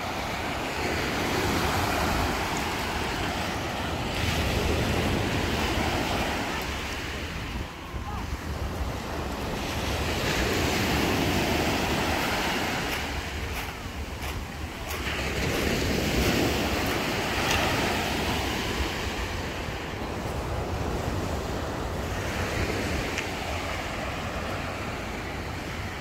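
Small sea waves breaking and washing up a pebble beach, swelling and easing every five or six seconds, with wind rumbling on the microphone.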